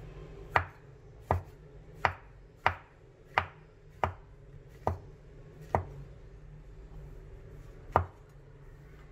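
Chef's knife slicing a mushroom on a wooden cutting board: sharp knocks of the blade meeting the board, eight at an even pace of about one every three-quarters of a second, then a pause and one more near the end.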